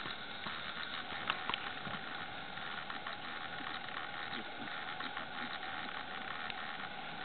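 Steady hiss of snowstorm wind, with a couple of faint clicks a little over a second in.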